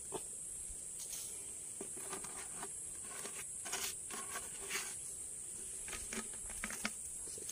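A steady high-pitched insect drone, with scattered faint rustles and small clicks of hands handling fishing tackle close by.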